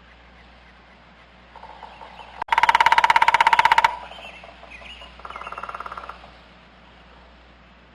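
A turkey gobbling: a loud, rapid rattling call lasting about a second and a half, then a fainter, shorter gobble about a second later. Small bird chirps and a low steady hum run underneath.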